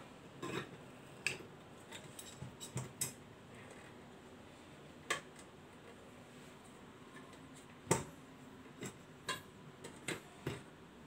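RoadPro 12-volt slow cooker's glass lid and lid-retaining straps being handled on the pot, giving scattered light clinks and knocks, the loudest about eight seconds in.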